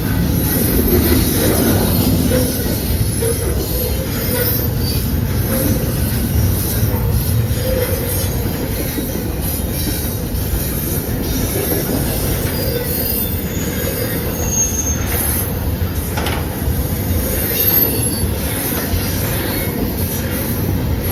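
CSX intermodal freight train rolling past: a steady rumble and clatter of steel wheels on rail, with a few brief high wheel squeals.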